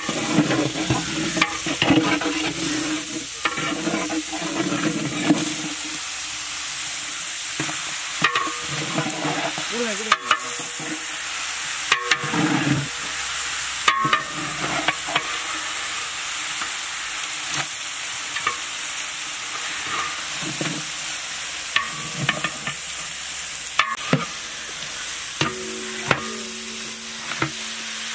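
Raw chicken pieces frying in hot oil and onions in a large aluminium cooking pot: a steady sizzling hiss, with scattered knocks and scrapes of a metal ladle against the pot as more chicken is tipped in and stirred.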